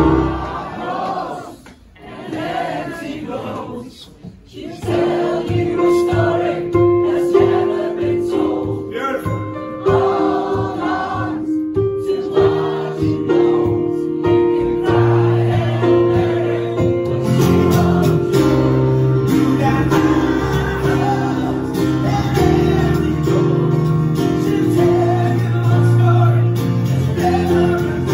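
Live acoustic performance: a man sings over an acoustic guitar and a piano sound from a Nord stage keyboard. The music drops low briefly near the start, then builds on steady piano chords, with deeper bass notes joining about halfway through.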